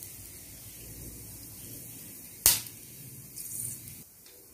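Whole spices and mustard seeds frying in a pan of hot coconut oil, a faint steady sizzle, broken by one sharp pop about two and a half seconds in.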